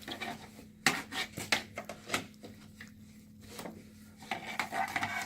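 Parts of a portable massage chair being handled: a few sharp knocks and clacks in the first couple of seconds, then rubbing near the end.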